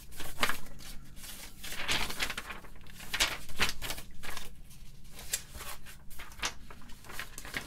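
Rustling of paper sheets being handled, with a few light taps and clicks mixed in.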